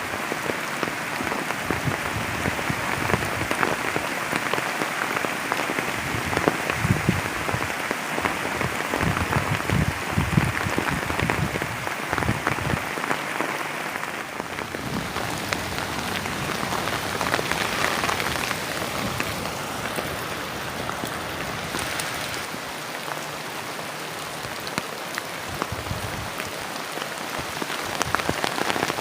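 Heavy rain pouring steadily, with a dense patter of drops hitting a surface close by.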